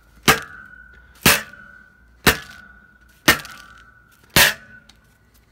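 Metal garden rake striking a phone lying on concrete paving: five sharp hits about a second apart, each followed by a brief ringing tone.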